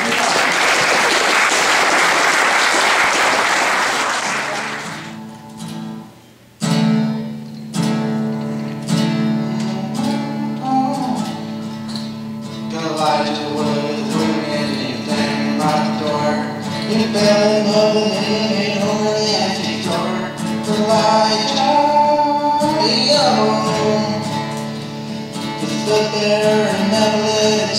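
Audience applauding for about five seconds, fading out. Then an acoustic guitar starts strumming, and from about nine seconds in a young man sings along with it.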